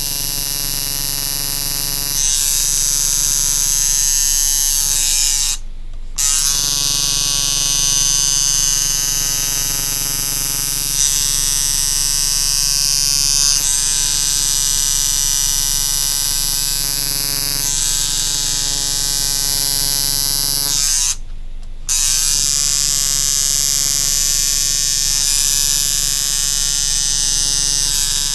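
Coil tattoo machine buzzing steadily as it lines a tattoo outline into skin. It cuts out briefly twice, about six seconds in and again about twenty-one seconds in.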